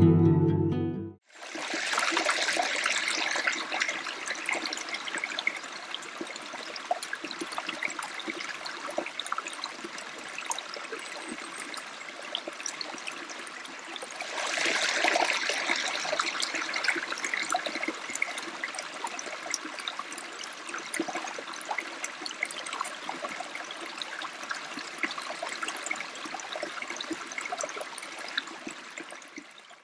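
Flowing water, like a small mountain stream, with a steady rush and fine trickling. It grows louder about halfway through, then settles back.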